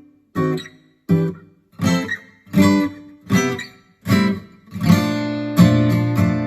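Acoustic guitar playing chords: six single strummed chords, each left to ring and die away, then steady continuous strumming from about five seconds in.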